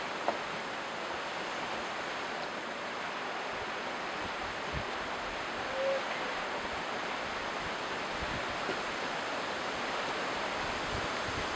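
Wind rushing steadily through the tree canopy, the leaves rustling, with a single click just after the start.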